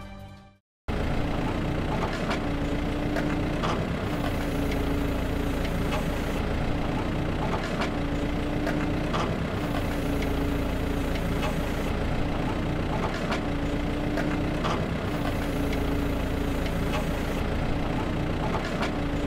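Radio-controlled toy excavator running: a steady engine-like hum, with a motor whine that switches on and off every second or two as the arm works, and scattered light clicks.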